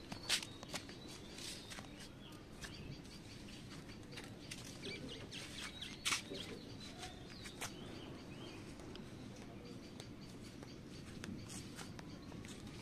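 Quiet outdoor ambience: small birds chirping faintly now and then over steady low background noise, with a few sharp clicks, the loudest about six seconds in.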